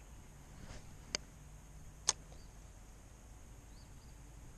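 Spinning rod and reel being cast: a faint swish, then two sharp clicks about a second apart from the reel being worked as the line goes out, over a steady low outdoor background.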